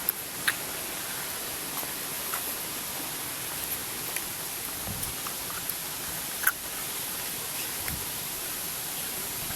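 Steady rushing of a waterfall, with a few sharp clicks, the loudest right at the start and about six and a half seconds in.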